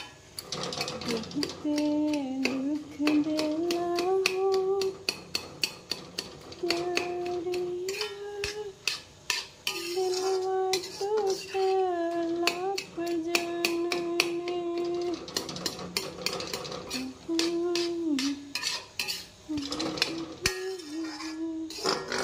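A perforated metal spatula stirring and scraping cabbage-and-potato sabzi in a metal kadai: many quick clinks and scrapes against the pan. Under it a voice hums a tune in long held notes.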